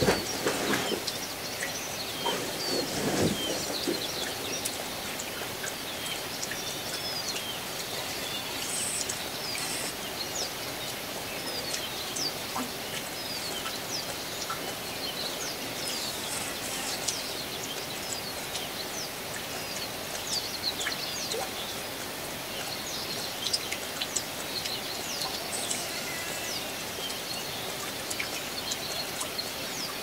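Steady rain falling, with many small songbirds chirping and singing throughout. A brief low rumble rises about three seconds in.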